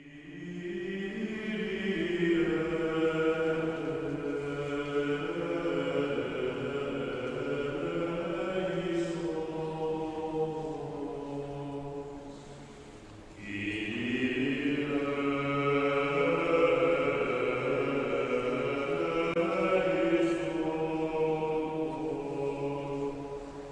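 Choral chant as background music: voices holding long, slowly moving notes in two phrases, the first fading out about halfway through and the next entering right after.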